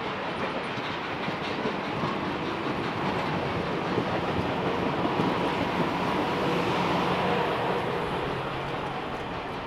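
Streamlined steel passenger cars rolling past at close range, their wheels clacking over the rail joints in a steady stream, swelling slightly in the middle.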